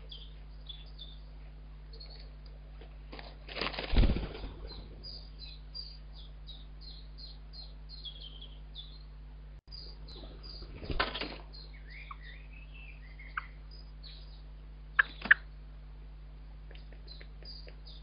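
A blackbird's wings flapping at the nest in two brief flurries, about four seconds in and again around eleven seconds, amid many short, high bird chirps. Two sharp clicks come close together near fifteen seconds, over a steady low electrical hum.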